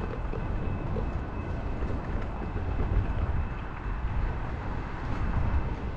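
Steady wind rush and low road rumble from a bicycle being ridden along a paved street.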